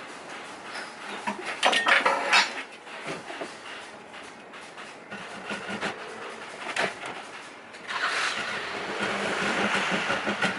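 Workshop handling sounds: a cluster of clattering knocks about two seconds in, a few more knocks, then a steady rasping from about eight seconds in.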